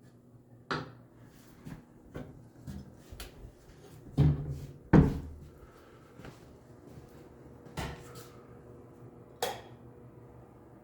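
A series of irregular knocks and bangs, like cupboard doors or boards being handled, with the two loudest about four and five seconds in.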